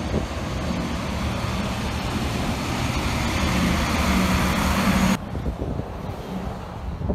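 A truck's engine and tyres pass close by, building to a peak with a low steady hum, then cut off abruptly about five seconds in. After that comes quieter street traffic noise.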